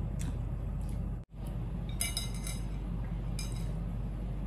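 Chopsticks clinking and scraping against a ceramic soup bowl as the last noodles are cleaned out: a cluster of clinks about two seconds in and a shorter one about a second and a half later, over a steady low hum.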